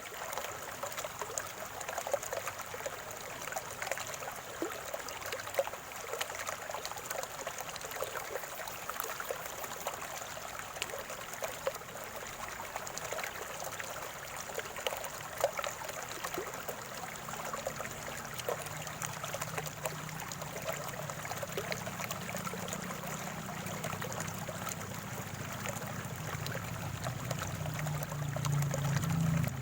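Spring water trickling and gurgling in a small stream, a steady run of little splashes and bubbles. A low hum builds up over the second half.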